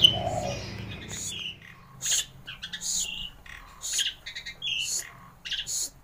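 A caged songbird calling in a string of short, high chirps and whistled notes, spaced about half a second to a second apart, over a faint low hum.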